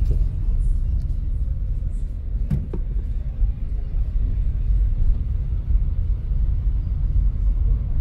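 Low, steady rumble of a car driving along the road, with two light knocks about two and a half seconds in.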